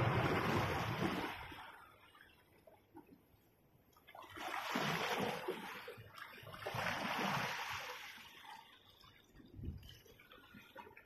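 Small sea waves washing and splashing over shoreline rocks into a rock pool, in three surges that each rise and die away over a second or two.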